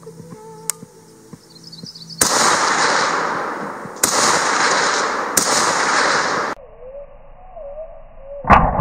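Rifle fire from a scoped, wood-stocked rifle: three sharp shots about two, four and five and a half seconds in, each followed by a long loud tail that cuts off abruptly, then a fourth shot near the end.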